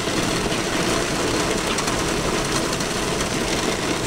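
Torrential rain and strong wind beating on a vehicle, heard from inside as a loud, steady, dense rush with no let-up.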